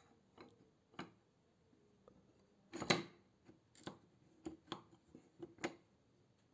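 A series of about ten sharp clicks and knocks at irregular spacing, with the loudest cluster about three seconds in, like small metal or wooden parts being handled.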